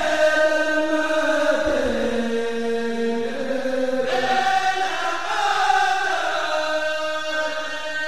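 A group of men chanting in unison, one melody of long held notes that slide from pitch to pitch: Mouride devotional chanting.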